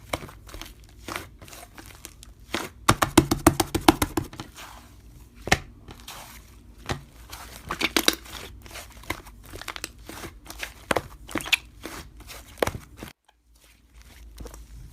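Slime being squished and pressed by hand, giving irregular crackling clicks and pops, with a quick run of rapid clicks about three seconds in.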